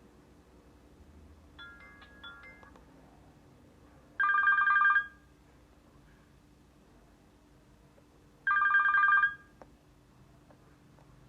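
Nokia 220 mobile phone playing a ringtone that imitates a telephone bell: two short rings of under a second each, about four seconds apart. A few faint short beeps come about two seconds in.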